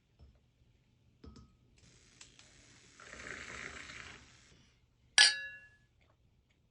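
A soft rustle, then about five seconds in a single sharp clink of a small hard object that rings briefly.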